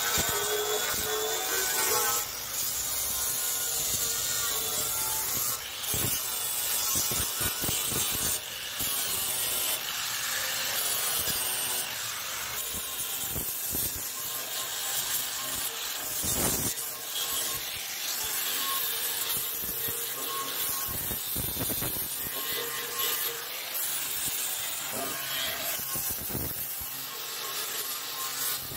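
Abrasive rubbing and scraping on the rusted metal of a table, uneven and continuous, as rust is worked off the surface.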